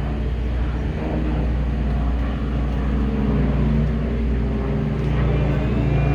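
Fixed-wing aircraft flying over low: a steady engine drone that grows slightly louder in the second half.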